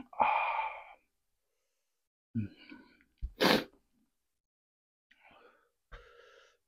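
A man's breathy vocal sounds: a loud exhale at the start, then a sneeze a little over two seconds in, a voiced catch of breath followed by one sharp, loud burst, and two faint breaths near the end.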